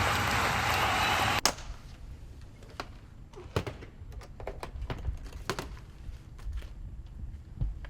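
Audience applause that cuts off abruptly about a second and a half in. It gives way to a quiet room with scattered light knocks and thunks.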